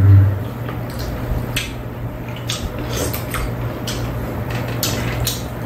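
Eating sounds: chewing and metal spoons clicking now and then against bowls and a pan, over a steady low hum.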